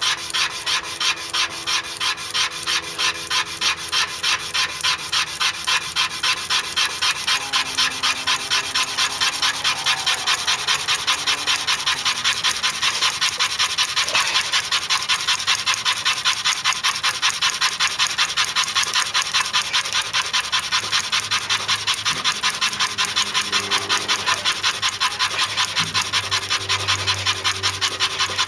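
Western red cedar plow stick rubbed fast back and forth in a groove on a cedar board: an even rasping at about three strokes a second, grinding out char dust for a friction-fire ember.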